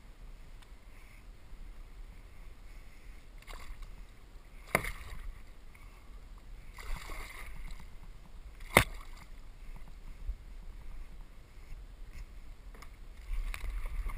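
Water slapping and sloshing against a plastic fishing kayak's hull under a steady low wind rumble on the microphone, with two sharp hard knocks about four seconds apart, the second the loudest, and a brief splash between them. The sound grows busier near the end as a large fish is brought up to the boat.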